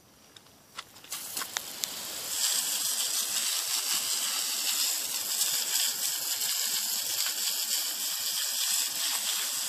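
A few sharp scrapes of a ferro rod striking sparks into grass tinder, then a loud, steady hiss for about seven seconds that cuts off suddenly.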